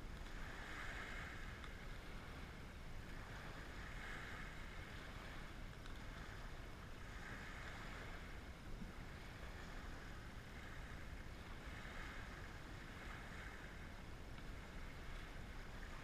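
Small waves washing onto a pebble shore, the hiss swelling and fading every few seconds over a low wind rumble.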